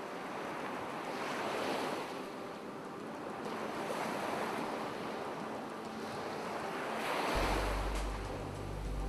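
Ocean surf washing on a shore, swelling and falling away every two or three seconds. A low steady drone comes in near the end.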